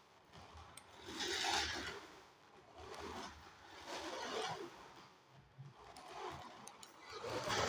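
Toy RC car running in short spurts of about a second each, its small electric motor and plastic gearbox whirring as it drives and stops.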